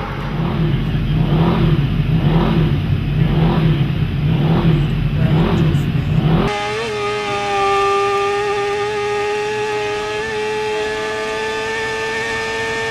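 A low rumble with a soft pulse about once a second, then an abrupt cut about six seconds in to a racing motorcycle's engine heard from on board, held at high, steady revs as one steady whine, with a brief flicker in pitch near the end.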